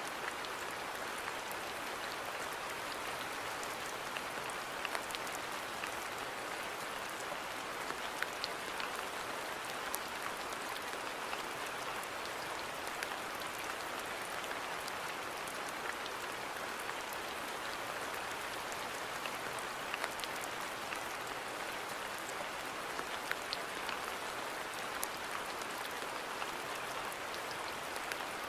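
Steady rain falling on a garden, an even hiss with scattered drops ticking on surfaces.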